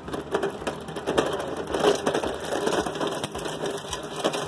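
Neiko 53418A magnetic pick-up sweeper being pushed over grass and gravel: its wheeled bar rolls and rattles, with a dense irregular crackle of clicks as it picks up bits of metal such as roofing nails.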